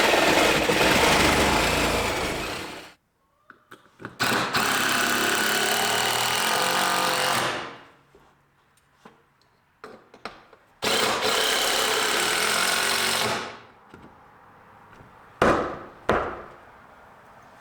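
A power tool running in three bursts of about three seconds each, with short pauses between, then two sharp knocks near the end.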